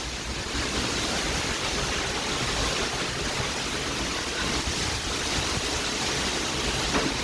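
Heavy monsoon downpour, a dense, steady hiss of rain with wind, heard from inside a car.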